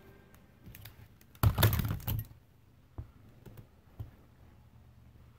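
Hand staple gun driving staples through vinyl into a quad-bike seat base: a loud cluster of clacks and handling knocks about one and a half seconds in, then single sharp clicks about three and four seconds in.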